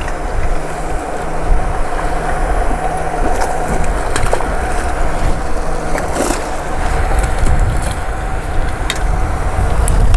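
Wind buffeting the microphone over a steady hum, with a splash about six seconds in as a landing net is dipped into the pond to scoop up a hooked fish.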